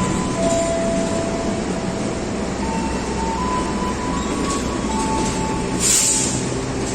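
Passenger train running: a steady rumble and rail noise, with faint thin high tones that come and go, and a short hiss about six seconds in.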